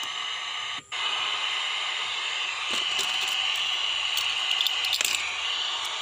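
FM radio static hissing from a USB MP3/FM radio kit's speaker while it is being tuned. The hiss cuts out for a moment about a second in. Light clicks and rattles of a USB flash drive being handled come from about three seconds in.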